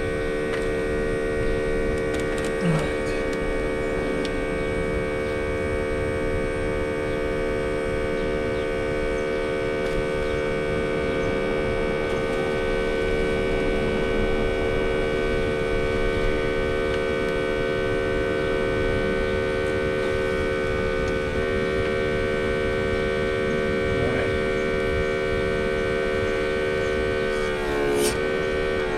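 Smoke tester's small electric air pump running with a steady hum while the machine heats its oil, before any smoke comes out. The pitch wavers briefly near the end.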